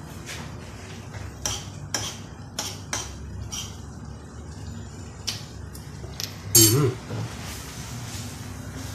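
A metal spoon clinks and scrapes against a steel frying pan of shrimp in a series of sharp taps. A louder metal clank with a brief ring comes about two-thirds of the way in as the pan is shifted on the gas stove grate.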